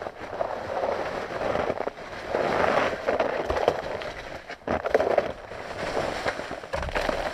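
Close, dense crackling and rustling with many small sharp clicks, coming and going in patches about every second: a person handling things and moving about in snowshoes on crusty snow, heard close to the microphone.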